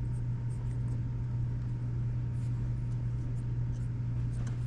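Steady low hum with faint small clicks and scratches of small cassette-deck parts being handled.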